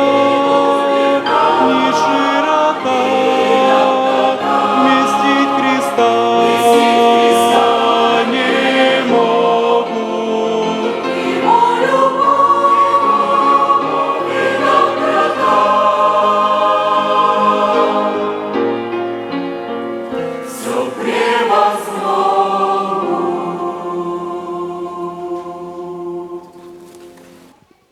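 Church choir singing a Christmas hymn in long held chords, the final chord dying away near the end.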